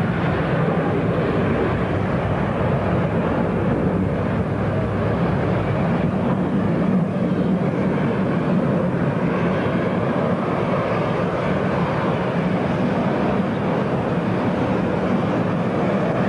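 Jet engine noise from a British Airways Boeing 747-200's four Rolls-Royce RB211 engines at take-off power as it climbs away after lift-off, heavy and steady throughout.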